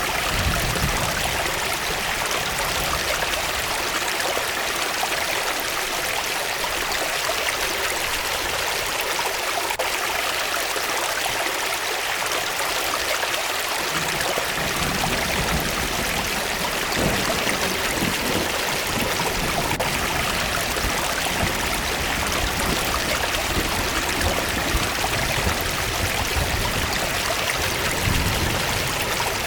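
Waterfall running steadily: an even wash of falling and splashing water, its deep rumble thinning for several seconds and returning about halfway through.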